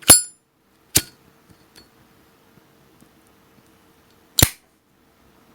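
Sharp metallic clicks of a Zippo lighter's hinged lid, three loud ones and a faint one; the first carries a brief high ring.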